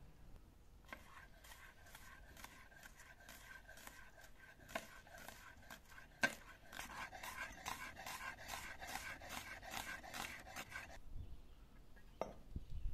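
Large knife slicing an onion on a stone cutting slab: a run of short crisp cuts, slower at first and quicker from about six seconds in, stopping abruptly near the end.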